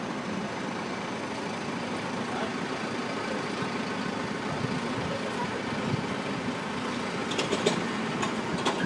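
Steady city street traffic noise, a continuous hum of passing vehicles. A few sharp clicks or knocks come near the end.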